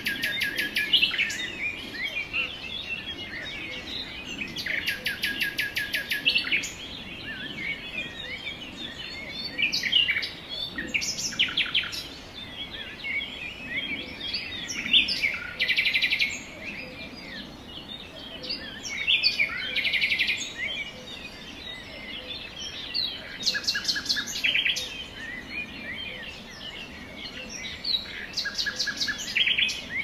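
Small songbirds chirping and calling continuously, with rapid trills of quickly repeated notes breaking in several times.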